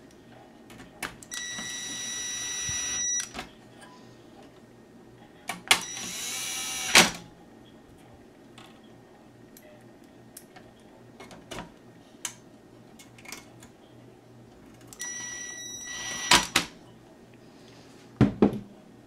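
Cordless drill/driver driving in the screws that mount a circuit board and its metal bracket. It runs in three short bursts, about two seconds, one second and a second and a half long, and the second rises in pitch before stopping with a click. Small clicks of screws and parts come between the bursts, with two knocks near the end.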